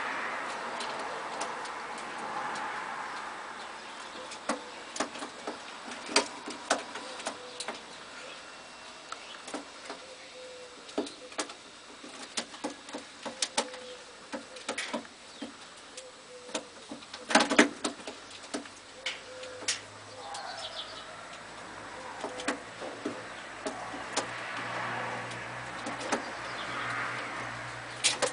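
Lahore pigeons cooing softly now and then, with scattered sharp clicks and taps throughout and a louder cluster of clicks about two-thirds of the way through.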